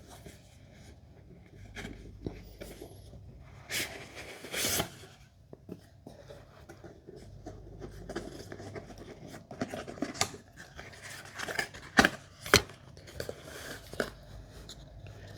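Cardboard and paper packaging being handled and opened: rustling and scraping with scattered sharp clicks. There is a longer rush of noise about four seconds in, and the two loudest clicks come close together about two-thirds of the way through.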